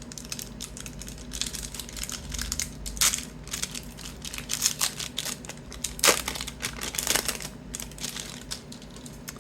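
Crinkling and crackling of a sealed 1991-92 Upper Deck basketball card pack's wrapper being torn open and handled, with a few sharper snaps about three and six seconds in.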